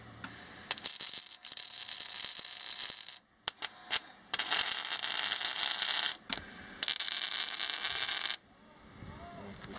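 Electric arc welding on steel, hissing in three runs of about one to two and a half seconds each, with short pauses and a few sharp clicks between them.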